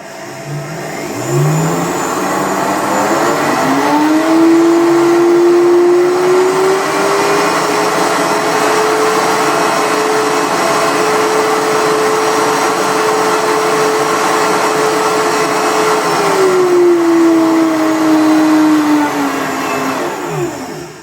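Optimum 9200A high-speed blender grinding rolled oats into flour on a preset cycle. The motor starts and its whine rises as it spins up over the first few seconds, runs steady at top speed, then falls as it winds down and stops near the end.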